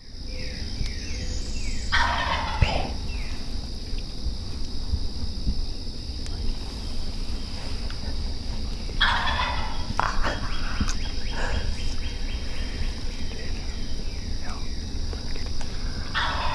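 Osceola wild turkey gobbling three times: about two seconds in, about nine seconds in, and again at the very end.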